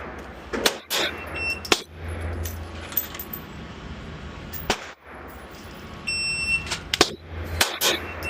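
Pistol shots fired in quick controlled pairs on a shot timer, each a sharp crack; an electronic shot-timer beep about six seconds in starts another string of shots.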